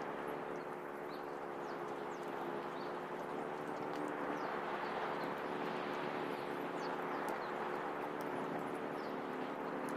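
Steady outdoor background noise with a low, even hum of several steady tones and faint scattered clicks.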